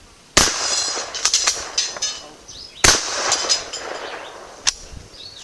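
Two 12-gauge shotgun shots firing slugs from a full-choke Sears and Roebuck shotgun, about two and a half seconds apart, each followed by a long rolling echo. A few fainter sharp clicks fall between them.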